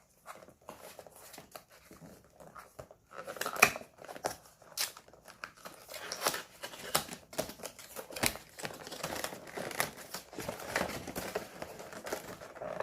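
Packaging being opened by hand: crinkling, rustling and tearing with irregular sharp crackles, quiet for about the first three seconds and then busy, with one loud snap about three and a half seconds in.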